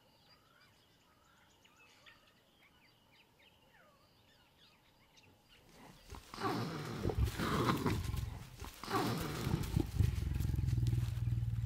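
Female leopard snarling and growling at a courting male, warning him off. It is quiet with faint bird chirps at first. About six seconds in come loud hissing snarls, then a steady low growl near the end.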